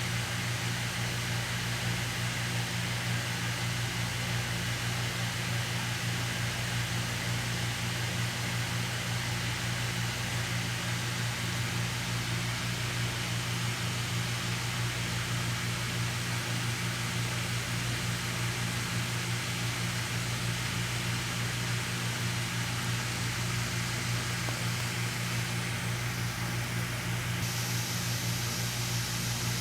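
A steady low mechanical hum with an even fan-like hiss.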